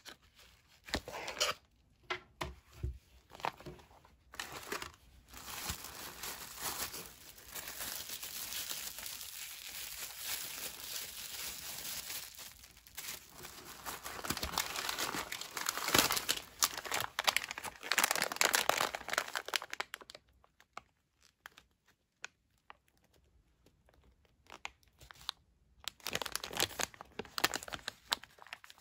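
Plastic food packaging crinkling and rustling as the meal's wrapped items are unpacked and handled, in irregular bursts that are dense through the middle and sparser and quieter near the end.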